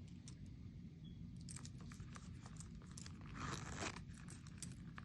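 Small leather coin pouch with metal rivets and a keychain being handled: light clicks and rustles, with a louder rustle lasting about half a second roughly three and a half seconds in.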